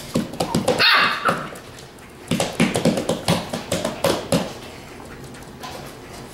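Border Collie puppies yipping and barking in quick, short bursts, in two flurries with a lull between them.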